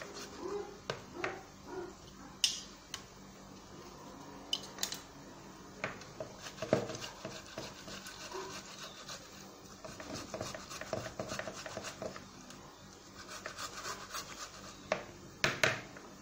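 Fresh tomatoes being grated by hand into a bowl: uneven rasping strokes of the fruit against the grater, with scattered small knocks of the grater and bowl.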